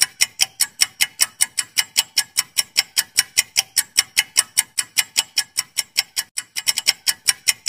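Quiz countdown-timer ticking sound effect: a rapid, even run of sharp, high clicks, about five a second, which briefly come closer together near the end.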